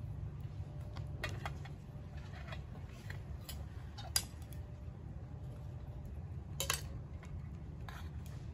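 Cutlery clinking and scraping on plates during a meal: scattered light clicks, the sharpest about four seconds in and just before seven seconds in, over a steady low background rumble.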